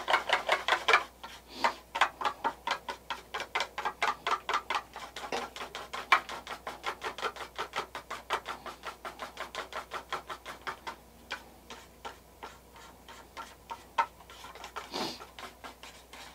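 Paint and thinner being stirred in a small airbrush paint cup, the stir stick ticking against the cup wall in a quick, even rhythm of about five ticks a second. After about eleven seconds the ticking thins out to scattered taps, with one louder tap near the end.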